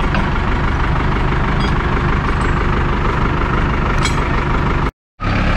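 Heavy diesel engine running steadily, a low even drone. The sound cuts out completely for a moment about five seconds in.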